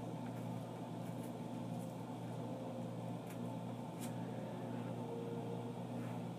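Steady low mechanical hum, with a few faint, sharp crinkles and ticks as a tea bag is pulled out of its wrapper by hand.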